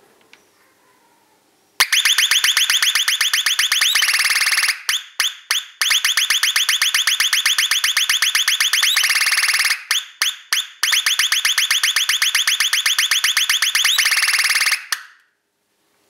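Homemade transistor doorbell circuit sounding through a small oval loudspeaker: a loud, rapidly warbling electronic tone that steps down to a lower pitch, then breaks into a few short fading notes. It plays this way three times and cuts off near the end, after a few faint clicks from the clip leads.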